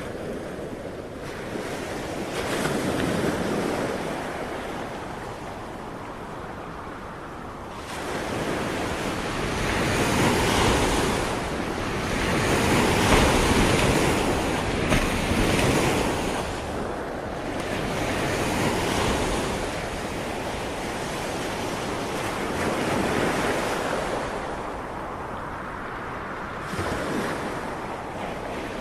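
Ocean waves breaking on a shore in a continuous wash that swells and subsides every few seconds, with some wind noise on the microphone.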